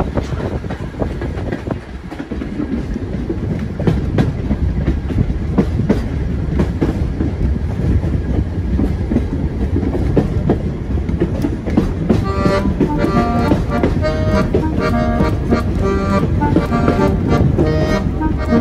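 Railway carriage running along the track, with a steady rumble and wheel clicks over the rail joints. About twelve seconds in, accordion music starts and plays over the train noise.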